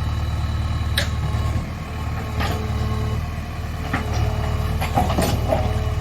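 JCB backhoe loader's diesel engine running steadily, with about five sharp knocks spread through it, two of them close together near the end.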